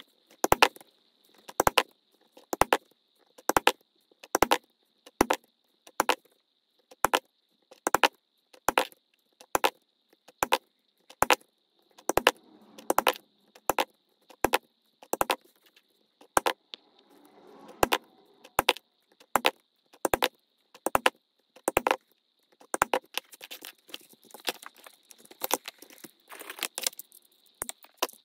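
Sharp clicks at a steady pace, a little faster than one a second, coming thicker and faster in the last few seconds, with brief soft rustling twice in the middle.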